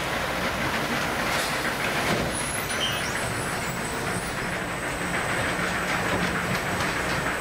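Automated bag-palletizing machine running: a steady mechanical whir and rattle, with a couple of light knocks in the first seconds and a faint high whine coming in about halfway through.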